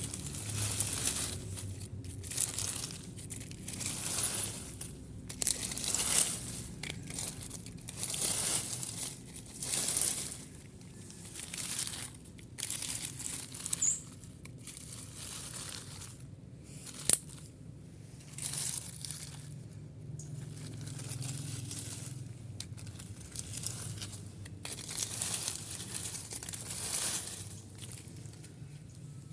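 Repeated dry crunching and crinkling scrapes, coming in bursts every second or two over a steady low hum, with one sharp click about seventeen seconds in.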